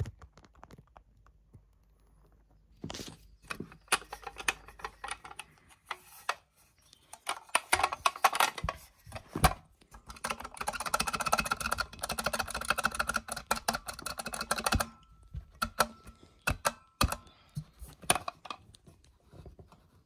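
Lift call button on a loose stainless-steel faceplate pressed over and over: a string of sharp mechanical clicks, densest and fastest through the middle, then thinning out.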